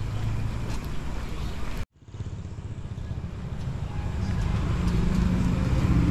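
Street traffic noise: a steady low engine hum from motor vehicles. It cuts out abruptly about two seconds in, then a steady engine hum builds up again toward the end.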